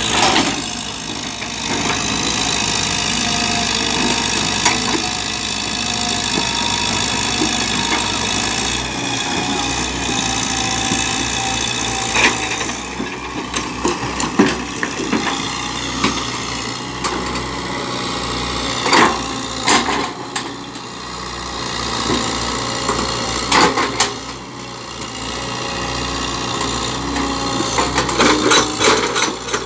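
Kobelco Yutani hydraulic excavator's diesel engine running under load, with scattered clanks and knocks from the arm, bucket and tracks as the machine, bogged down in mud, works to free itself.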